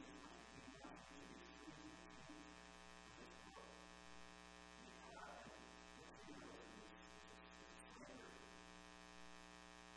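Near silence: a steady electrical hum and buzz, with faint, indistinct speech underneath.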